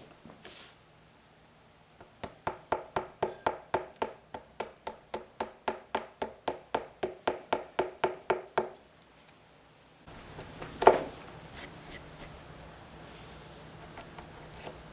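A hammer striking repeatedly in a steady rhythm, about four ringing blows a second for several seconds, then stopping. Later, over a steady low hum, one loud knock.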